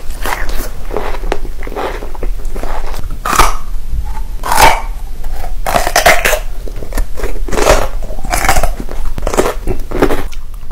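Close, loud eating sounds: crunchy bites and chewing, including bites into a whole raw carrot, in a series of sharp crunches.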